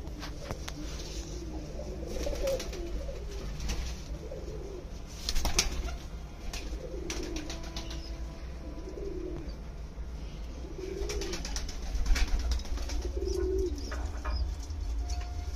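Fantail pigeons cooing, with short low coos repeating every second or two, among scattered sharp clicks and rustles.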